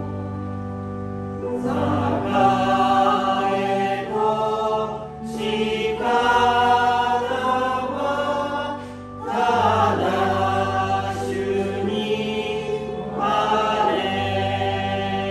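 A congregation singing a hymn of praise together over a sustained instrumental accompaniment, in phrases a few seconds long with brief breaks between them, about five and nine seconds in.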